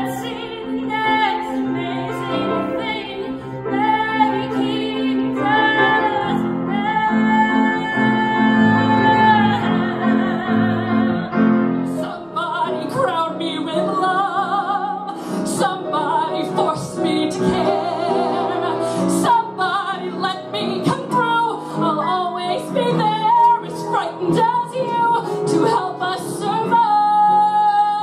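A woman singing solo with grand piano accompaniment, holding long notes with vibrato. About twelve seconds in it cuts abruptly to a different performance of her singing into a microphone.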